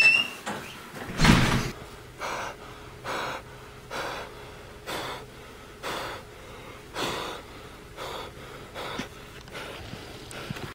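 A person breathing heavily: one loud gasp about a second in, then heavy breaths about once a second.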